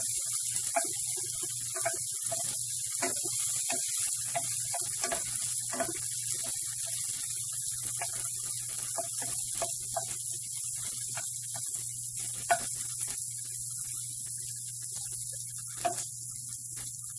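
Chopped red onion sizzling in a stainless steel pan with a steady hiss, while a wooden spoon stirs it with scattered clicks and scrapes against the pan. There are two sharper knocks in the second half. A steady low hum runs underneath.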